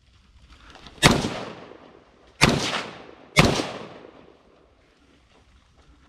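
Three gunshots, the first about a second in and the next two about a second apart, each trailing off in an echo.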